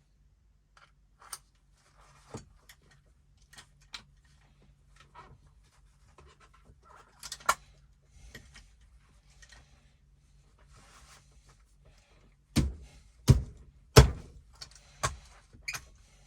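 Small handling clicks and rustles as a rivet and washer are fitted through a bag strap, then a run of about five loud, sharp knocks near the end as the rivet is set.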